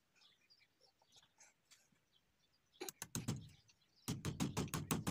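Hammer driving nails into a window frame to hold a mesh screen. A few blows come about three seconds in, then a quick, even run of about eight blows a second near the end.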